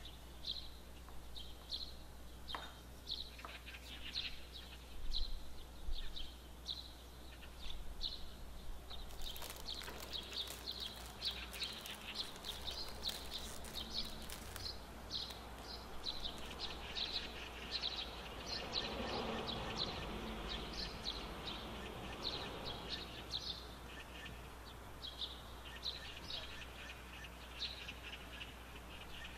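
A small bird chirping over and over in the background, short high chirps about one and a half a second. In the middle a plastic biscuit packet crinkles and rustles as it is handled.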